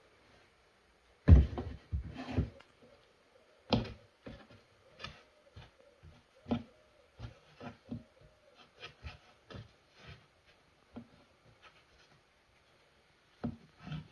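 Hands rolling and braiding bun dough strands on a floured wooden cutting board: irregular soft knocks and rubbing against the wood, with a louder thump a little over a second in.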